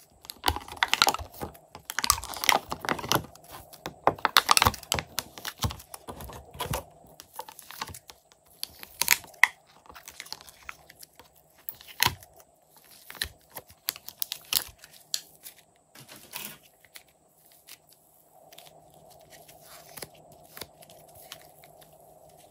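Clear plastic tray crackling and clicking as fingers dig and peel soft clay out of its compartments, in dense runs for the first several seconds and more sparsely after. Near the end it gives way to a quieter, softer sound of fluffy slime being stretched.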